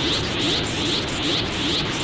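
Dragon Ball Z Super Saiyan 3 power-up sound effect: a steady, dense crackling hiss that pulses evenly a few times a second.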